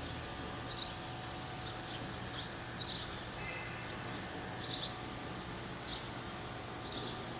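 Short, high bird chirps every second or two over a steady background hiss and low hum.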